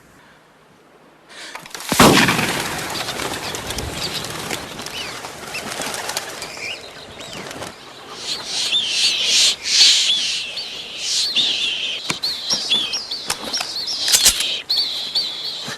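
A single gunshot about two seconds in, then a flock of birds bursting into flight, a dense rush of flapping wings that goes on for several seconds. From about halfway through, many short bird calls and chirps sound over the wingbeats.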